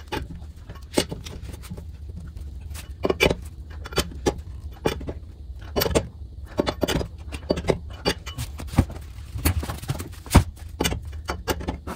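Lug nuts being run on and tightened with a steel lug wrench on a steel wheel: irregular metallic clinks and knocks, over a steady low hum.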